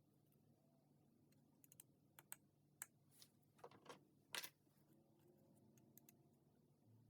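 Faint, scattered light clicks and taps of small metal tools being handled, bunched together in the middle, over a low steady hum.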